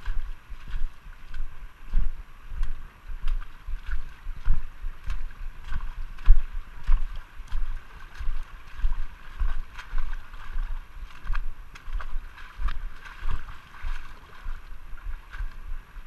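Footsteps wading through a shallow creek, a dull thump with splashing at a walking pace of about one and a half steps a second, over the steady sound of flowing water.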